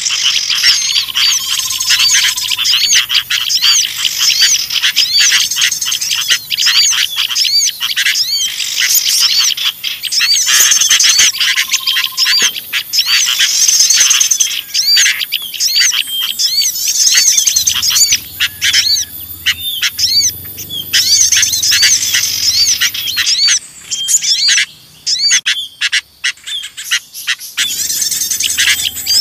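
Bird-lure recording of a dense chorus of small songbirds chirping and twittering rapidly over one another, with a couple of lower whistled notes. The chorus thins out briefly near the end.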